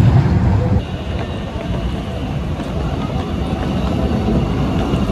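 Tram at a city tram stop: a steady low rumble with a thin, high, steady whine over it. About a second in, the louder rumble of a tram on the move cuts off and the quieter sound takes over.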